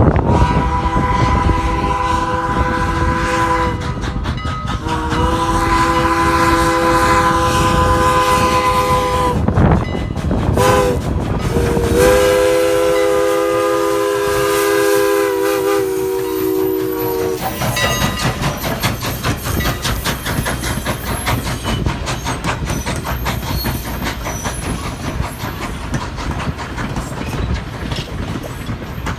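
Ex-Canadian National 89, a 2-6-0 steam locomotive, sounding its chime whistle in the grade-crossing signal: long, long, short, long. After the whistle stops, the train rumbles and clatters past, the wheels clicking over rail joints.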